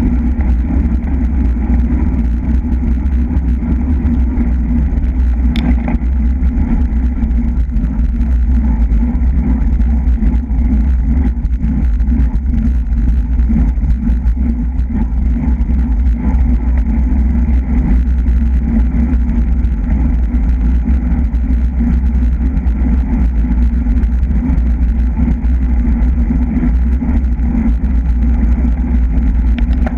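Wind rushing over the microphone of a camera riding on a racing bicycle, a steady loud low rumble mixed with tyre and road noise, with a single short click about five and a half seconds in.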